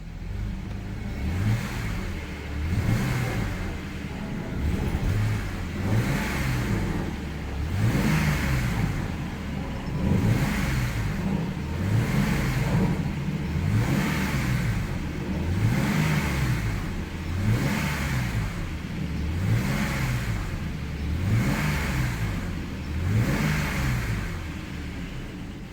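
BMW 635CSi straight-six engine running, its speed rising and falling over and over, about once every second and a half.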